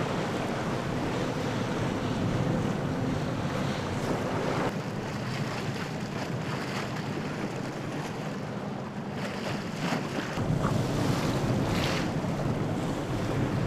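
Wind buffeting the microphone over the rush and slap of choppy sea waves. The sound changes abruptly twice, once about a third of the way in and again near three-quarters, with more low rumble in the last part.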